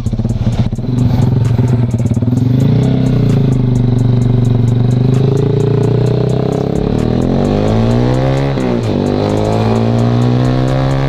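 Sigma 250 motorcycle engine pulling away and accelerating, its pitch climbing through a gear, dropping at an upshift about nine seconds in, then climbing again.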